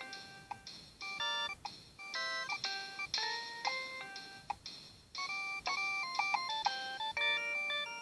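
A Nokia 6610i's loudspeaker plays one of its preloaded ringtones: a quick synthesized melody of short, clipped notes, with several notes sounding at once. The melody pauses briefly about one second and five seconds in.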